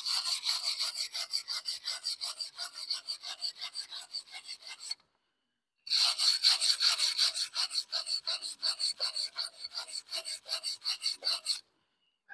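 Hand wire brush with steel bristles scrubbed rapidly back and forth over a freshly oxy-acetylene welded steel plate, about five strokes a second, cleaning scale off the weld bead. The brushing pauses briefly about five seconds in, resumes, and stops shortly before the end.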